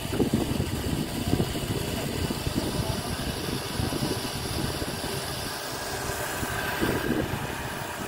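Off-road vehicle engine running steadily at a constant level, starting suddenly.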